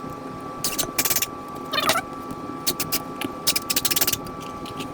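Power driver running #8 by 2.5-inch screws partway into wood boards in several short bursts, one with a brief rising motor whine, over a steady background hum.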